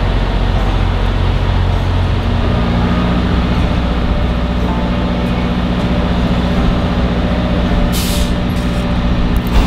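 Heavy diesel truck engine idling steadily, with a brief hiss of air about eight seconds in.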